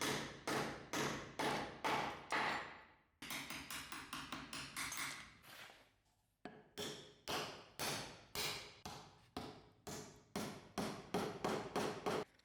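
A hammer striking over and over, about two to four blows a second, in runs broken off abruptly twice, each blow ringing briefly.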